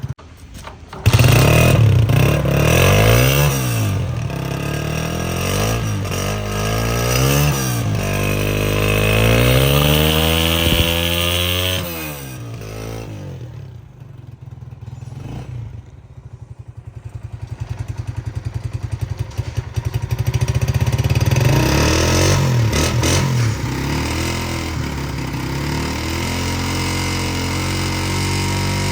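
Honda CG125's single-cylinder four-stroke engine being revved: several short throttle blips, then a longer held rev, dropping to a slow idle where the separate firing pulses can be heard. It is revved up again and then settles to a steady idle.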